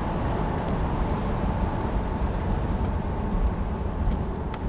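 Steady road and wind noise with the engine running underneath, heard inside a supercharged 2006 Jaguar XKR convertible cruising at speed. A single sharp click comes near the end.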